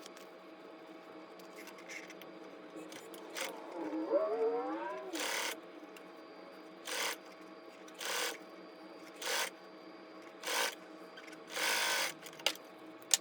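1950 Singer 99k sewing machine stitching a flat felt seam. About four seconds in the motor speeds up with a rising whine, then it sews in a string of short bursts, about one every second and a quarter. A sharp click comes near the end.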